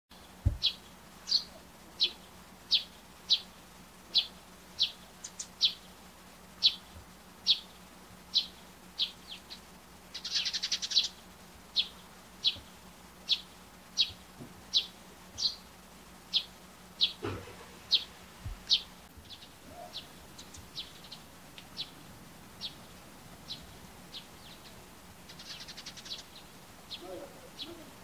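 Eurasian tree sparrow chirping: a steady series of short, high 'chun' chirps, about one to two a second. A quick chattering run comes about ten seconds in, and a fainter one near the end. These are calls the uploader suspects are its everyday contact call rather than song.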